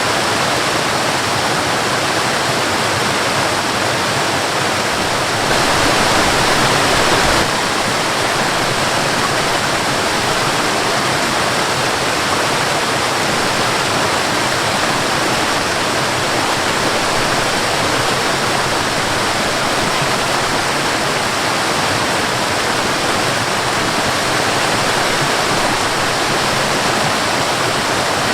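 Waterfall and river water rushing steadily, swelling slightly louder for about two seconds roughly six seconds in.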